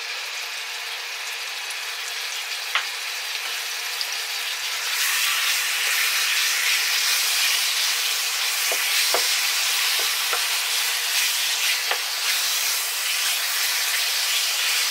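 Raw chicken chunks sizzling in hot oil in a frying pan as they are browned, the sizzle growing louder about five seconds in as they are stirred with a slotted spatula, with a few light taps of the spatula against the pan.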